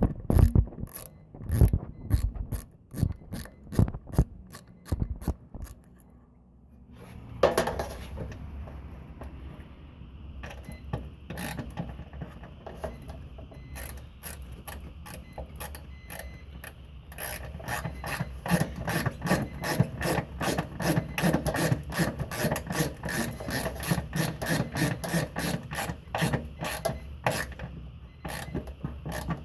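1990 Honda Civic Si hatchback's four-cylinder engine being cranked over by the starter in even, rhythmic pulses for about twenty seconds without catching. Before that come a few seconds of separate clicks. The engine won't start.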